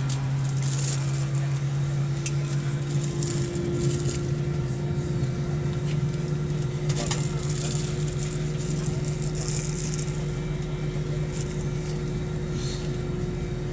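Airliner cabin noise while taxiing: a steady engine and air-system hum with a low droning tone, and now and then light rattles from the cabin.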